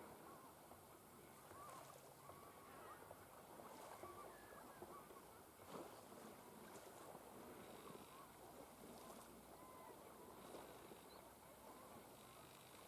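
Faint, scattered bird calls, many short chirps, over a low steady hiss of the sea shore.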